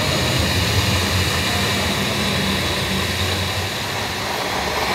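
Electric countertop blender running steadily at speed, churning a thick green liquid, with a low motor hum and a faint high whine.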